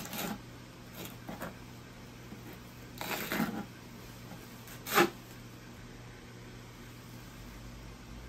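Brief handling noises: a few short rustles and scrapes, a longer rustling scrape about three seconds in, and one sharp clack about five seconds in, over a steady low hum.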